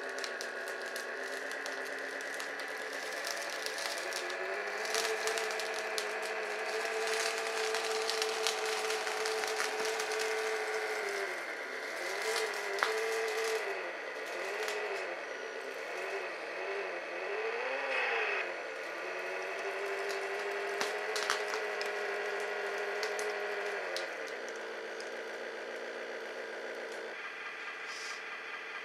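Cheap electronic engine-sound module on an RC Komatsu excavator model, playing a synthetic diesel drone with no bass. The drone holds steady, then revs up and down several times about halfway through and rises briefly before settling, and drops lower near the end. Clicks and clatter from the model's moving parts run over it.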